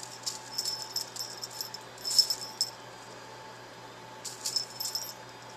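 Small metal bell jingling in quick shakes, with a lull in the middle and another bout of jingling near the end.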